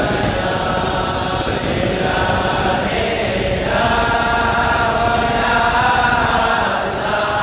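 A group of voices chanting together in unison, holding long notes that shift in pitch every few seconds: devotional chanting, as in a dhikr or qasida after a religious sermon.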